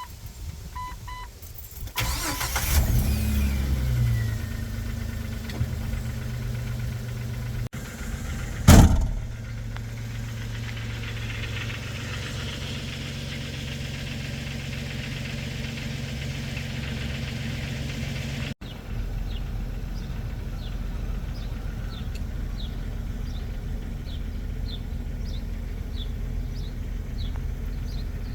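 Jeep engine cranking and starting about two seconds in, then running at a steady idle, with a single loud bang about nine seconds in. Later the engine runs on as a steady low rumble with a faint tick about once a second.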